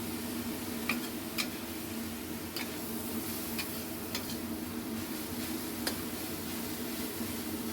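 Stir-fried papaya cooking in a pan: scattered sharp pops and ticks, about half a dozen, over a steady low hum.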